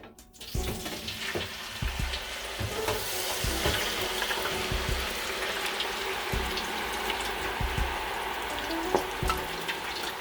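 Hand-cut raw potato fries in the hot oil of an electric deep fryer, sizzling and crackling as the water on them boils off at the start of frying. The sizzle starts suddenly about half a second in and holds steady.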